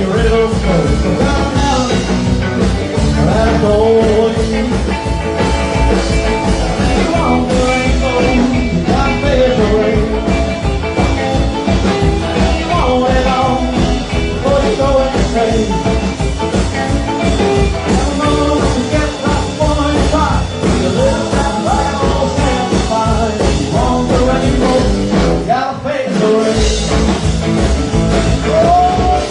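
Rock and roll band playing live, a singer over guitar, bass and drums, with a short break in the bass and drums near the end.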